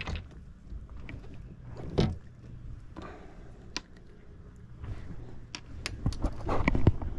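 Handling noise on a fiberglass boat deck while a crappie is unhooked: scattered knocks and clicks, the loudest knock about two seconds in, and a quick run of taps near the end.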